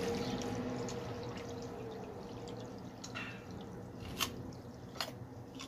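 Water trickling and dripping, fading over the first few seconds, with a few sharp single clicks about a second apart in the second half.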